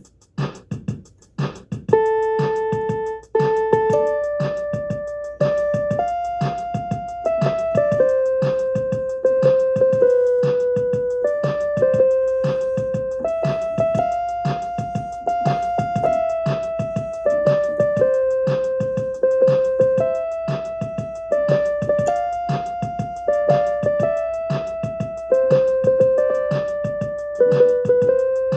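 Electronic keyboard playing a slow melody of single held notes over its built-in drum rhythm; for the first couple of seconds only the drum pattern is heard.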